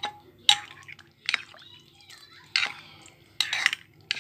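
Metal spoon stirring boiled white peas in a glass bowl of pani puri water. It clinks against the glass and sloshes the liquid in about five short bursts.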